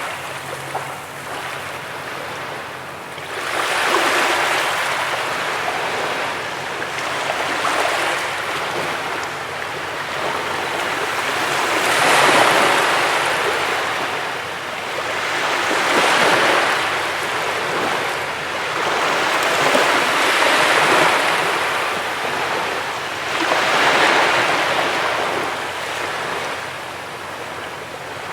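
Ocean waves breaking on a beach, the surf swelling and washing back about every four seconds.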